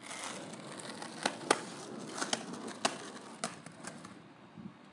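Skateboard wheels rolling over a paved court with a steady rumble, broken by a string of sharp clacks of the deck and wheels hitting the ground during a trick attempt, the loudest about a second and a half in. The rolling fades away about four seconds in.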